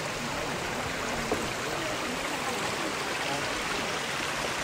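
Rocky mountain stream flowing over stones in small cascades, a steady wash of water.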